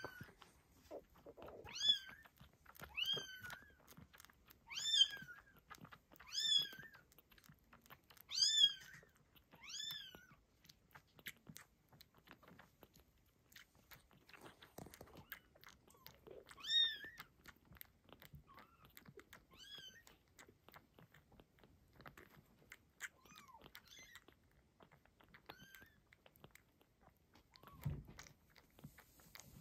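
Baby kittens mewing: about ten short, high-pitched, rising-and-falling cries, several in quick succession at first and then a few spaced further apart. Between them, faint rapid wet clicking of kittens suckling and chewing on a bottle nipple.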